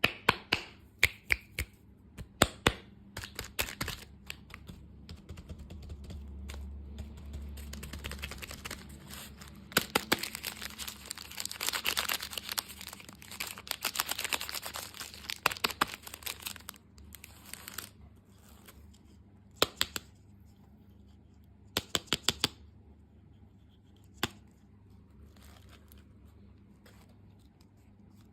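Close-miked crunching and crackling of candy: sharp cracks in irregular runs. A dense stretch of crackling comes about ten to sixteen seconds in, then a few sparse clicks in small clusters.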